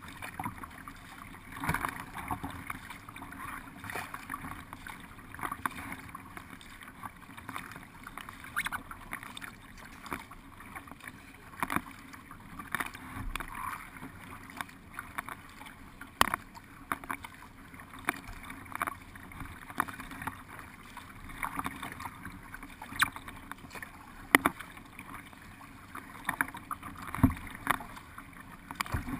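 Water rushing steadily past a paddled kayak's hull close to the bow, with short sharp splashes and knocks every second or two from the paddle strokes.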